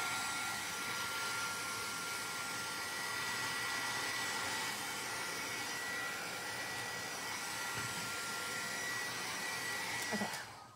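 Embossing heat tool blowing hot air with a steady high whine as it melts white embossing powder on a card. It is switched off near the end.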